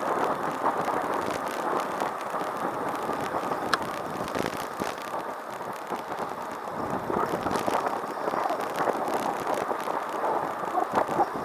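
Steady rush of wind and tyre noise from riding a small two-wheeled vehicle along a city street, with one sharp click near four seconds in.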